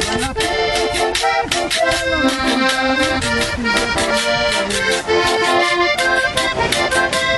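Accordion playing an instrumental vallenato passage with a moving melody over held chords, accompanied by a hand-scraped percussion instrument keeping a steady, even beat.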